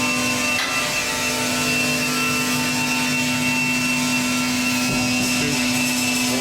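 Pet bedding baler running: a steady machine hum with a constant high whine.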